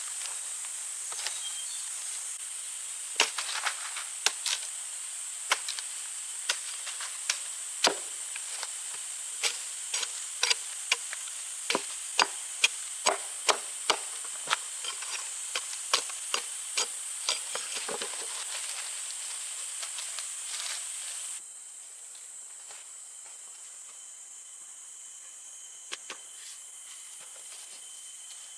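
Repeated chopping strikes on wood, irregular at about one to two a second, over a steady high insect drone. About 21 seconds in, the chopping has stopped and the drone cuts off, leaving a quieter, thinner insect chirring.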